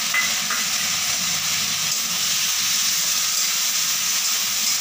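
Hot oil sizzling steadily in a kadai as freshly added tomato pieces fry with onions and green chilli–cumin–ginger paste.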